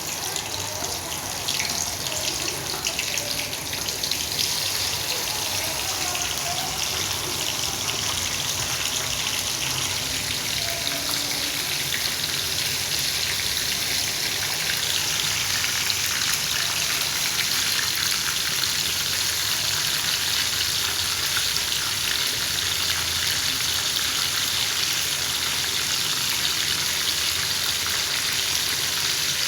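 Chicken feet frying in hot oil: a steady sizzle with dense fine crackling, growing stronger about halfway through.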